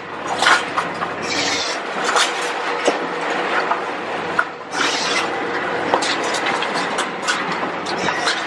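Split firewood knocking and clattering as it tumbles against the steel bars of a rotating firewood cleaner drum: a constant run of irregular knocks over the steady hum of the machine.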